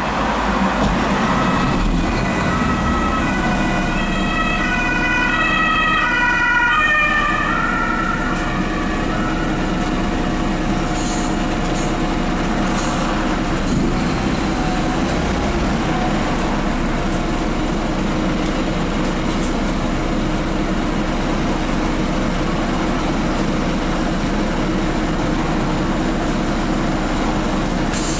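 The 9.2-litre DAF PR183S3 six-cylinder diesel of a 2008 Solaris Urbino 12 city bus starting up, heard inside the passenger saloon. For the first several seconds a cluster of whining tones steps up and down in pitch, then the engine settles into a steady idle drone.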